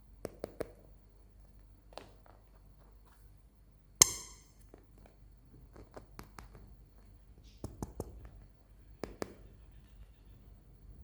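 Hands handling toys and their packaging: scattered light clicks and taps, some in quick clusters, with one sharp, much louder click about four seconds in that rings briefly.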